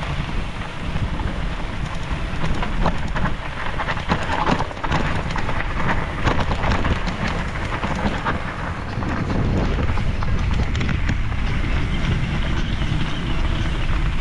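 Wind buffeting the microphone: a steady rumbling rush with scattered crackles throughout.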